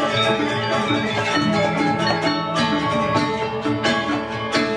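Balinese gong kebyar gamelan playing a tabuh kreasi piece: bronze metallophones and gongs ringing in rapid struck patterns, with suling bamboo flutes and kendang drums.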